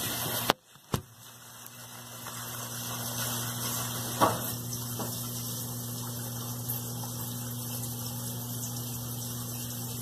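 Colormaq LCA11 top-loading washing machine's drain pump humming steadily as it pumps out the wash water. There is a brief break with a click just under a second in, and a single knock about four seconds in.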